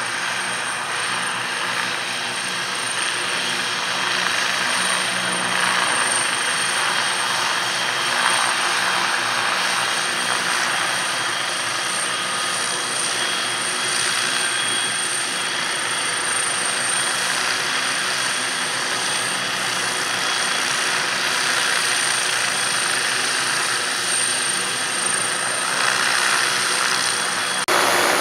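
MD 500E helicopter running steadily, its Allison 250 turboshaft and rotors giving a constant noise topped by a high, steady turbine whine. The sound changes abruptly near the end.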